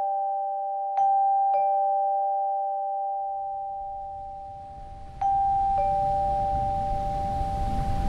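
Two-tone ding-dong doorbell chime, rung twice about four seconds apart: each time a higher note, then a lower one, both ringing on and fading. A steady rumble and hiss swells up underneath from about halfway through.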